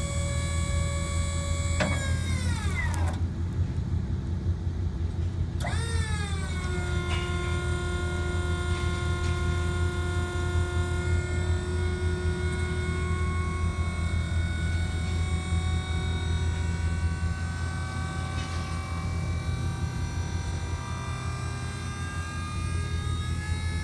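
Hydraulic pump motor of a squeeze bale bed whining as the arms clamp and lift a round hay bale, over a steady low hum. The whine sags in pitch and stops about three seconds in, starts again a few seconds later, then runs steadily with its pitch creeping up near the end.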